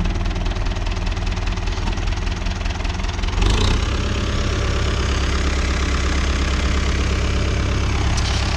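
Renault 651 tractor's diesel engine running steadily at work, with a brief loud clatter about three and a half seconds in and another near the end.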